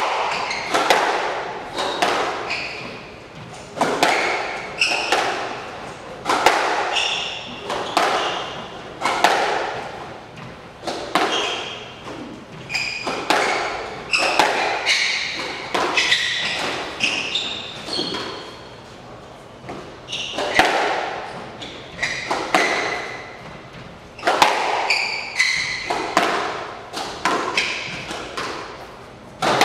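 Squash rally: the ball struck by racket strings and hitting the walls over and over, about one to two sharp, echoing hits a second, with short high squeaks in between from court shoes on the wooden floor.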